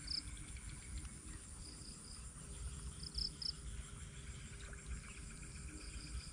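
Faint outdoor dawn ambience: short high chirps in twos and threes, about four times, with faint steady insect-like tones, over a low rumble.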